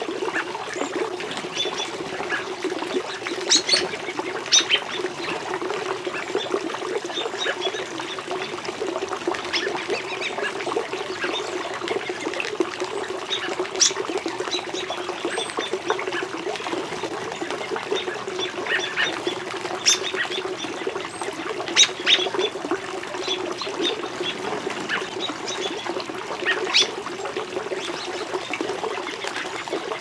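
Small pond waterfall running steadily into the water, with frequent sharp splashes and gurgles on top.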